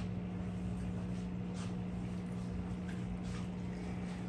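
Steady low electrical hum with a few faint light taps and rustles: room tone with no clear event.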